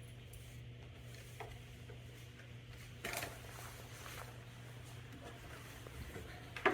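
Small parts being handled by hand: a faint click, a brief scrape or rattle about three seconds in, and a sharp click near the end, over a steady low hum.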